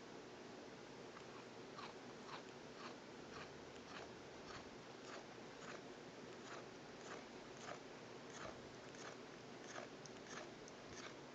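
A domestic cat grinding its teeth: faint, gritty scraping strokes repeating about twice a second, beginning a second or two in, over a steady low hiss.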